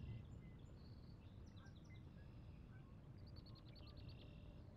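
Faint small-bird song from the marsh: scattered high chirps, then a rapid trill of repeated high notes in the last second or so, over a steady low rumble.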